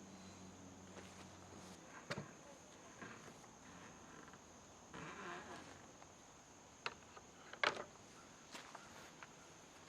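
Faint scattered knocks and clicks, like tools or parts being handled, over a steady high-pitched whine; a low hum stops about two seconds in.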